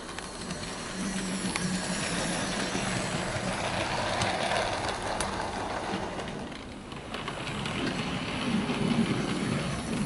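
Hornby OO gauge SE&CR Wainwright H Class model tank locomotive running on track with a coach: a steady motor hum and wheel-on-rail noise, with a few light clicks. It grows louder in the first few seconds, dips briefly, then swells again as the engine comes close.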